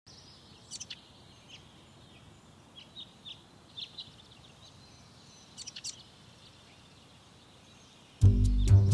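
Small birds chirping faintly, a few short high calls scattered over a quiet steady background hiss. Near the end, music cuts in suddenly and loudly, with plucked low strings.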